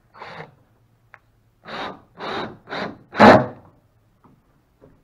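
Cordless drill boring into a plywood side-deck panel in short bursts: one brief burst near the start, then four quick ones about a second and a half in, the last the loudest.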